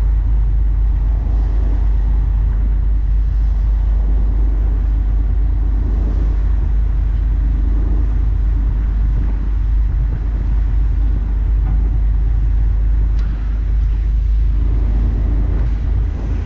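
Fishing boat's engine running steadily under way, a deep, even rumble with water rushing along the hull.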